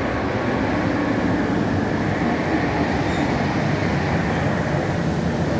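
Steady cabin noise inside a moving CAF Urbos streetcar: an even rumble of wheels on rail and running gear.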